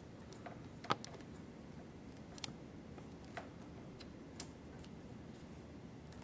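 A few light clicks and taps of hard plastic as hands handle the removable muscle pieces of an anatomical leg model: four short clicks, the first and loudest about a second in, over a faint room hiss.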